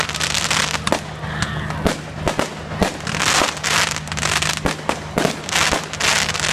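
Fireworks going off: a rapid run of sharp bangs and cracks, with three stretches of dense crackling hiss like crackling or fizzing fireworks, over a steady low hum.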